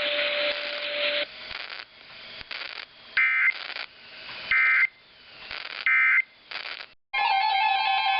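Three short Emergency Alert System SAME end-of-message data bursts, the shrill warbling digital tones that close a NOAA Weather Radio warning, about a second and a half apart with radio hiss between them. Near the end, guitar music starts.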